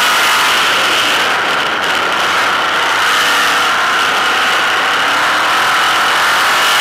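Sprint car's V8 racing engine running hard under load, heard from a camera in the cockpit: loud and steady, with a brief dip in level about two seconds in.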